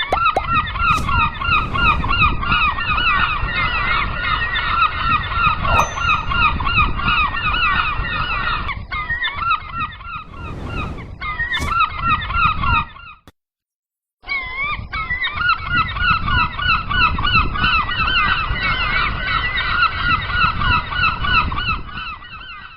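A flock of gulls calling continuously, many harsh, honking cries overlapping into a dense chorus. It cuts out for about a second a little past the middle, then starts again.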